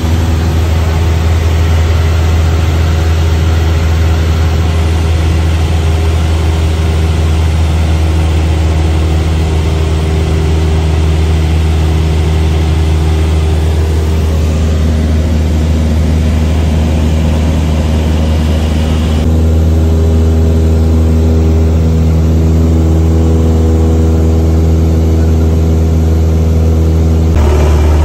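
Cabin drone of a Cessna 172SP's four-cylinder Lycoming engine and propeller in cruise, a loud, steady low hum with an even tone. About two-thirds of the way through the sound becomes duller, losing some of its hiss.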